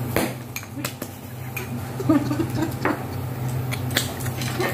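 Kitchen utensils and cookware clinking and knocking, about half a dozen separate clicks over a steady low hum.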